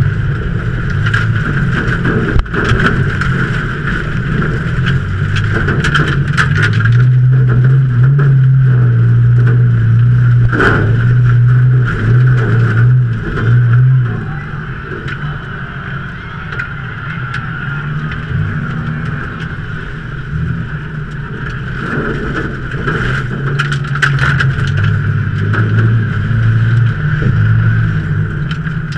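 2003 Ford Taurus race car's V6 engine running hard, heard from inside the car. It eases off about halfway through and picks up again near the end.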